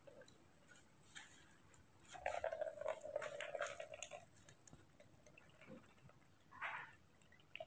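Orange juice poured through a small plastic strainer into a plastic cup: a faint trickle, strongest about two to four seconds in, with a few light plastic clicks from handling the container and strainer.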